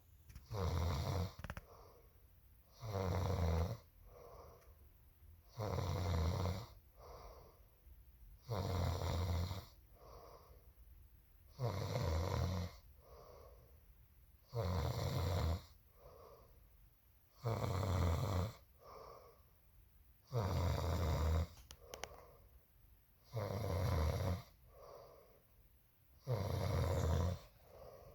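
A sleeping woman snoring: a loud, rasping snore about once every three seconds, each lasting about a second, with a quieter breath between snores.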